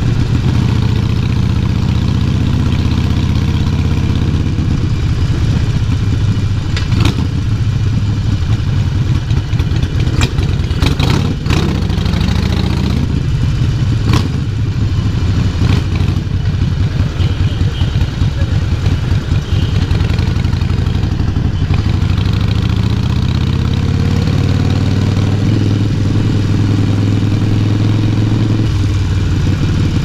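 Harley-Davidson Forty-Eight XL1200X's 1200 cc V-twin running through a Vance & Hines full exhaust system, its note dipping and rising with the throttle, with a few sharp clicks in the middle. Near the end the engine note climbs steadily, then drops suddenly.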